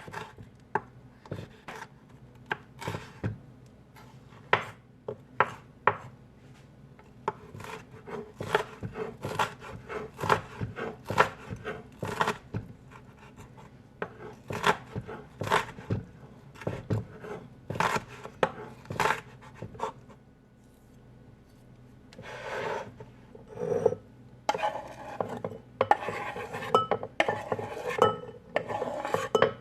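Kitchen food preparation: sharp, irregular knocks of a knife or utensil on a board or bowl for about twenty seconds, then scraping and clinking of utensils near the end.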